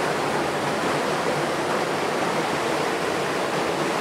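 Steady rushing of falling water from the Pirates of the Caribbean ride's waterfall drop. It is an even, unbroken roar.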